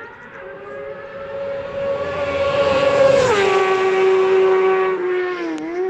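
A racing motorcycle at full throttle passes close by: its high engine howl climbs in pitch and grows louder, then drops sharply in pitch as it goes past about three seconds in, with a short dip in pitch near the end.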